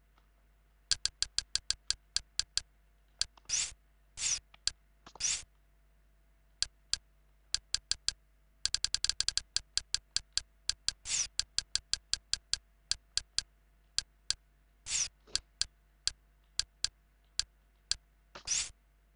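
Interface clicks from scrolling through XBMC's Navi-X menu lists: single ticks, a fast run of them about nine seconds in as the cursor runs down a list, and a few longer swishes as entries are opened.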